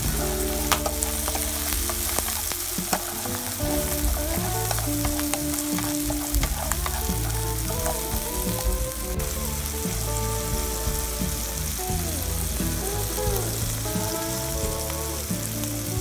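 Shelled river clams sizzling in hot oil in a wok, stirred with wooden chopsticks, with scattered light clicks as the chopsticks work the pan.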